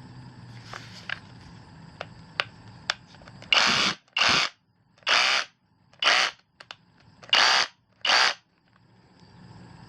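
A Kobalt 24V Max SDS Plus rotary hammer is run without load in six short trigger bursts of about half a second each, starting about three and a half seconds in. A few sharp clicks come before the bursts.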